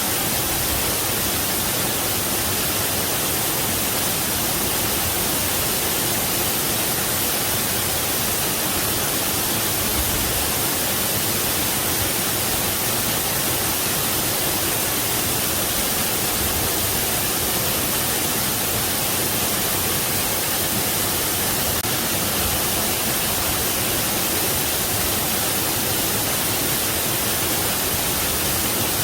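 Waterfall rushing, a steady even roar of falling water with no breaks or changes.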